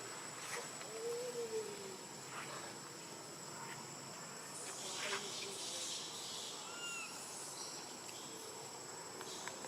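Outdoor ambience with a steady high-pitched insect drone. Over it come a few short animal calls: a low arched call about a second in and a higher, brief call near seven seconds, plus a few faint clicks.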